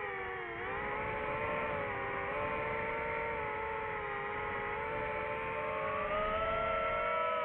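DJI FPV drone's motors and propellers whining steadily. The pitch dips about half a second in and rises slightly near the end as the throttle changes.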